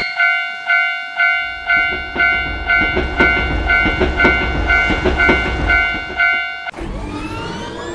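Japanese level-crossing warning bell ringing about twice a second (the "kan-kan" alarm), while a train rumbles and clatters past under it. The bell stops near the end and a rising whine follows.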